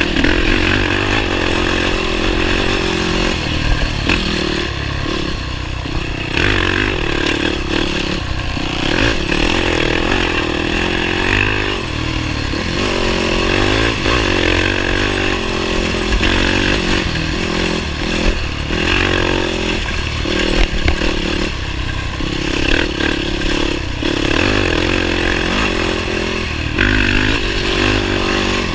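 Motorcycle engine running under way, its revs rising and falling.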